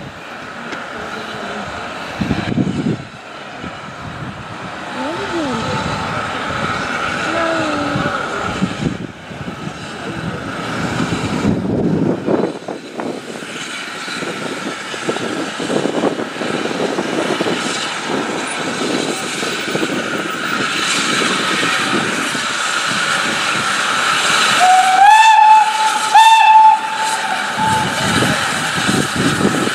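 Steam locomotive running with a steady hiss of steam, growing louder. Near the end its whistle sounds twice: a first blast that swoops up into a held note, then a shorter second blast.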